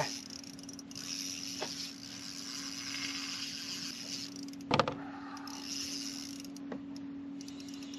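Spinning reel being wound in spurts to bring in a hooked fish against a bent rod, a whirring that starts and stops, over a steady low hum. A sharp knock about five seconds in.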